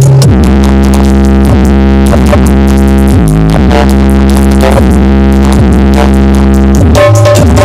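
Very loud electronic dance music with synthesizer and a heavy, steady bass, with a short break in the beat near the end, played through a carnival sound system.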